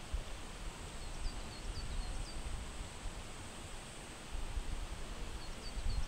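Outdoor ambience with wind rumbling on the microphone in gusts, over which a small bird gives two quick runs of short high chirps, about a second in and again near the end. A faint steady high-pitched tone runs underneath.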